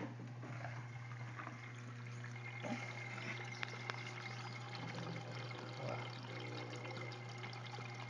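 Water pouring and trickling into an LG Prime front-loading washer through its dispenser drawer, filling the drum for the final rinse by the fabric-softener side, over a steady low hum.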